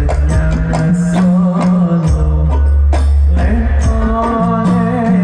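A male singer performing sholawat (Islamic devotional song) into a microphone, backed by drum beats and a deep sustained bass.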